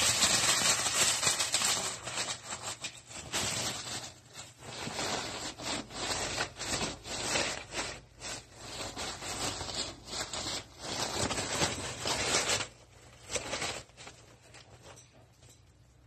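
Tissue paper crinkling and rustling as a fox squirrel bites and drags it about. It is a dense run of rapid crackles that stops about twelve and a half seconds in, followed by a few last rustles.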